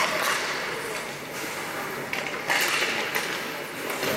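Ice hockey play on a rink: skate blades scraping the ice and sticks and puck clacking, with a louder scrape about two and a half seconds in.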